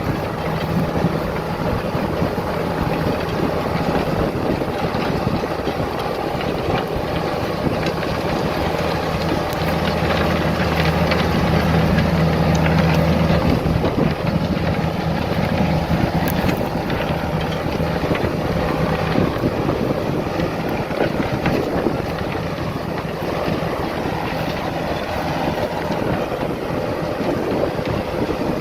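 Diesel farm tractor engine running steadily under working load, with a stronger, deeper engine note for a few seconds about a third of the way in that drops away suddenly.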